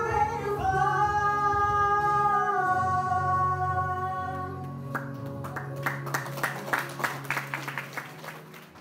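A young man and a young woman singing a duet into microphones, holding a long note together over a steady low accompaniment. From about five seconds in, a quick run of sharp strokes, several a second, follows as the sung note fades.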